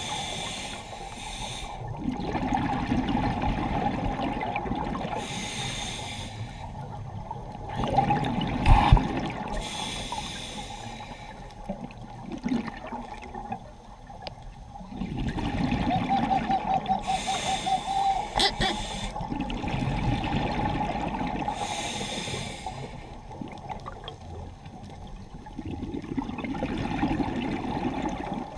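Scuba breathing through a regulator underwater: a hiss on each inhalation alternating with a bubbling rumble of exhaled air, in a slow cycle of about one breath every five seconds. A sharp knock about nine seconds in.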